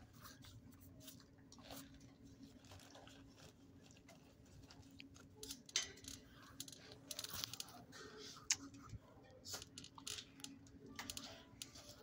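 Dog in a kennel nosing for and eating bits of chicken off the floor: scattered faint clicks, crackles and chewing sounds, the sharpest twice near the middle, over a steady low hum.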